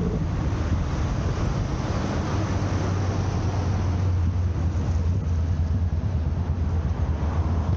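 Steady low rumble of road traffic, with a deep hum that grows stronger for a few seconds in the middle.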